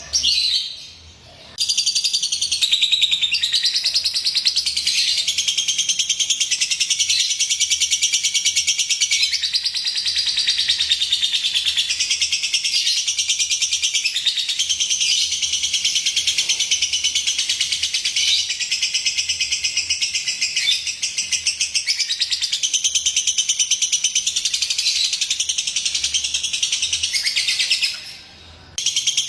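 Lovebird singing a long, rapid, high-pitched chattering trill, breaking off briefly about a second in and again near the end.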